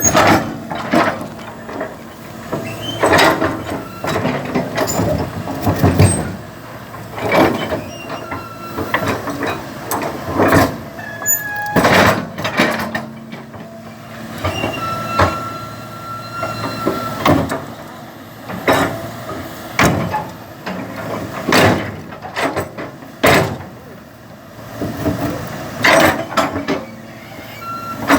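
Excavator machinery making repeated loud clanking and grinding bursts, about one every second or so, over a steady running background. This fits the jammed link and failing engine that the title names.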